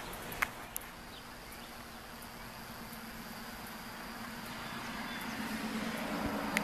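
Faint steady electrical hum with a hiss from a 12-volt battery charger powering an electrolytic rust-removal bath, slowly growing louder. Two light clicks in the first second.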